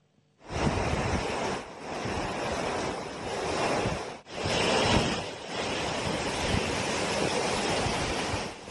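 Fast-flowing floodwater rushing and churning in a steady, dense wash of noise. It starts about half a second in and drops out briefly a few times.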